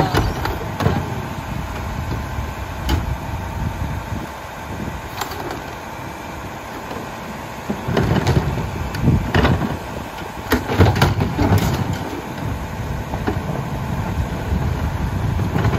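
Rear-loader garbage truck's engine idling while wheeled trash carts are tipped into its hopper: a run of clunks and bangs from the plastic carts and their lids, with trash tumbling in, heaviest from about eight to twelve seconds in.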